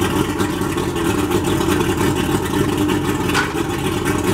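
1998 Mercury 150 two-stroke V6 outboard running steadily on a garden-hose water supply, with its new water-pump impeller in place. Cooling and exhaust water sprays and splashes out of the propeller hub. A single sharp click comes about three seconds in.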